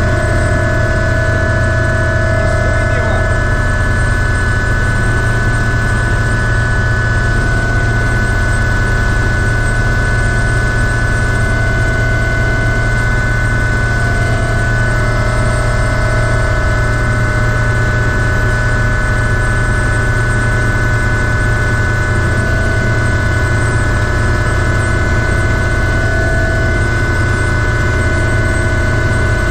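Ultrasport 555 helicopter's turbine engine running steadily, heard from inside the cockpit: several high, steady whine tones over a deep drone.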